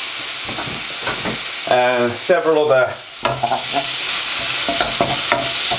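Turkey breast pieces frying in hot oil in a pan with a steady sizzle, stirred with a spatula.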